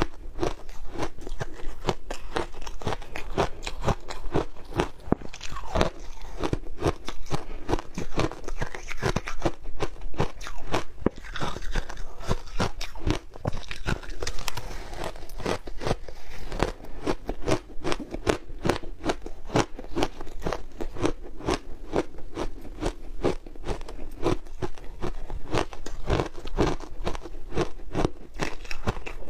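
Shaved ice coated in matcha and milk powder crunching as it is bitten and chewed, a dense run of crisp crunches close to a clip-on microphone.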